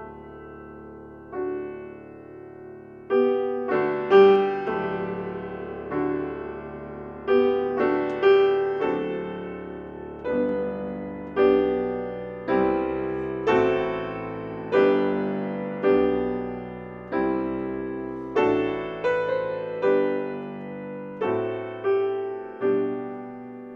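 Slow, gentle piano music, with single notes and chords struck about once a second and left to ring and fade.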